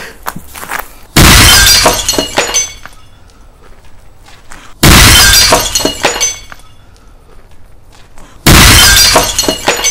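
Three loud blasts about three and a half seconds apart, each a large firecracker exploding inside a ceramic toilet bowl and shattering it, followed by shards clattering and tinkling down onto paving.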